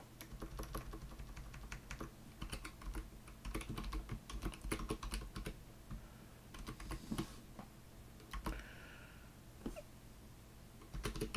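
Computer keyboard typing: irregular runs of key clicks with short pauses between them.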